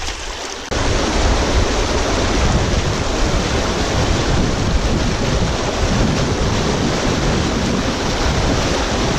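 River water rushing over rocks in a rapid: a steady, loud rush that comes in abruptly just under a second in, after a quieter trickle of water.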